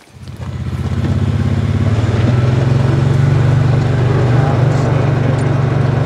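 A small engine running steadily at an even, low pitch, swelling in over the first second.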